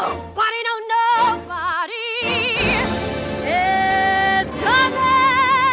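A woman singing a Broadway show tune with heavy vibrato over a full orchestra. The music builds into long held notes in the second half.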